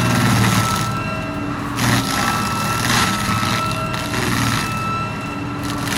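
A large engine running steadily under load, with bursts of rushing, grinding noise rising and falling about once a second.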